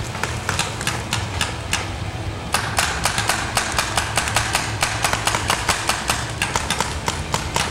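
Paintball markers firing, a rapid string of sharp pops that gets faster and denser about two and a half seconds in, to five or six shots a second.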